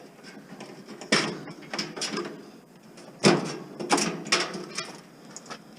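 Rummaging through a car, with a series of short clattering knocks and scrapes: four clusters a second or so apart.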